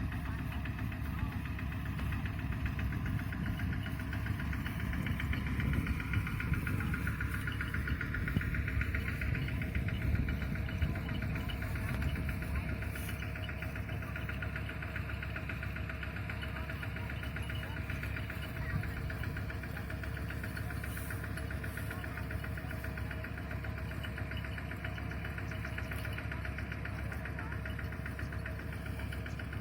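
Kubota DC-70 rice combine harvester running steadily under load, its engine and harvesting machinery working.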